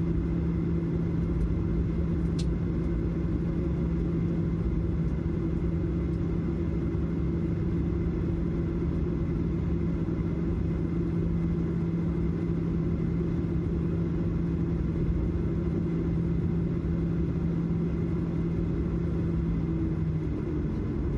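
Steady cabin noise inside an Airbus A320 airliner: a low rumble with a steady hum that drops out near the end.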